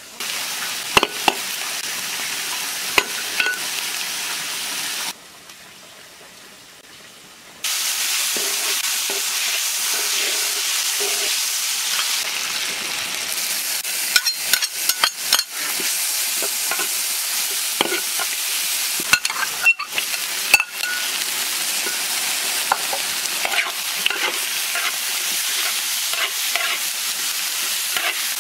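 Duck pieces and dried red chilies sizzling in hot oil in a wok, with a metal spatula scraping and clanking against the wok as the food is stir-fried. About five seconds in the sizzle drops away for a couple of seconds, then comes back.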